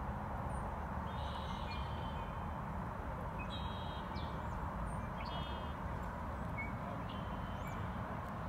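Small birds chirping in short phrases every second or two, over a steady low background rumble.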